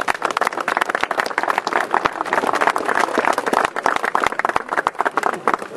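Audience applauding: many hands clapping steadily, stopping just before the end.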